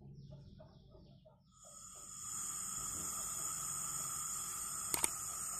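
Gas blow torch on an LPG canister hissing as gas flows from the unlit nozzle. The hiss rises in about a second and a half in and then holds steady, and a sharp click comes near the end.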